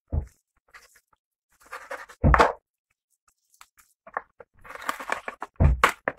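Knife chopping through raw chicken on a cutting board: three heavy thumps, about two seconds apart, with rough cutting and tearing sounds between them.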